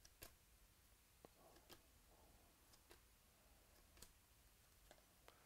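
Near silence with faint, scattered ticks and a soft rustle of baseball trading cards being flipped through by hand.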